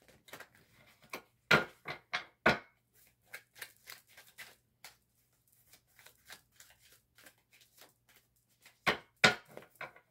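A deck of oracle cards being shuffled by hand: a quick run of light card clicks, with a few louder snaps of the cards near the start and again near the end.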